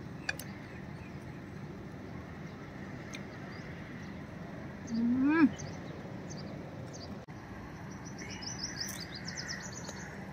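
Small birds chirping in quick runs of short high notes over steady outdoor background noise, with one short rising 'mmm' of a woman's voice about five seconds in.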